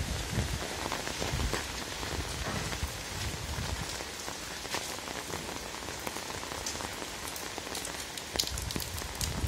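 Steady rain falling, with many separate drops ticking close by. A low rumble of wind on the microphone comes back near the end.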